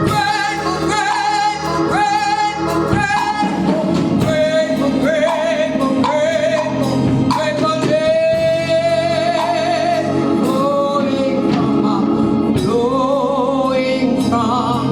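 Gospel singing with musical accompaniment: a lead voice with vibrato over sustained backing.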